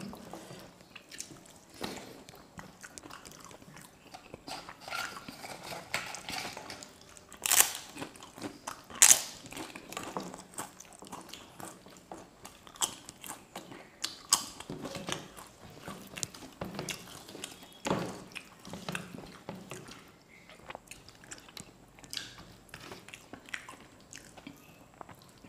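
Close-miked eating: chewing and biting, with sharp, crisp crunches of papad (fried lentil wafer). The two loudest crunches come a second and a half apart, about seven and a half seconds in, among many smaller crackles.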